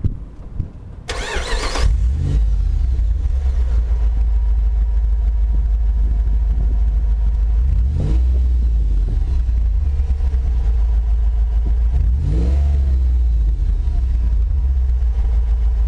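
Jeep Grand Cherokee's 5.7 Hemi V8 starting: a short starter whine about a second in, then the engine catches and runs at a loud, steady low idle through a Magnaflow exhaust with the catalytic converters removed. A brief rise and fall in revs comes about twelve seconds in.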